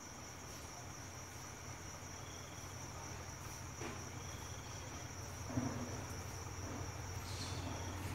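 Crickets chirring steadily in a continuous high trill over a faint low rumble from an approaching train, which grows a little louder toward the end. A short soft knock comes about five and a half seconds in.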